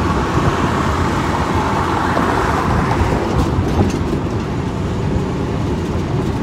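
Steady rush of wind and road noise riding in the back of a pickup truck moving at highway speed, with a heavy low rumble.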